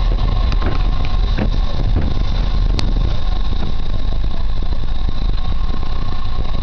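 Narrow-gauge passenger train running along the track, heard from a carriage window: a steady low rumble of the wheels on the rails, with one sharp click about three seconds in.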